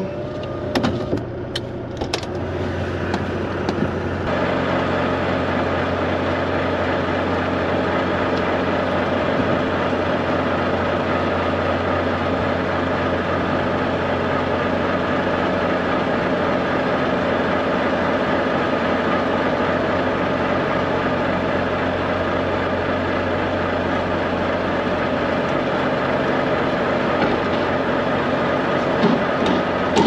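Semi truck's diesel engine idling steadily, becoming louder and clearer about four seconds in as the cab door opens, after a few knocks near the start.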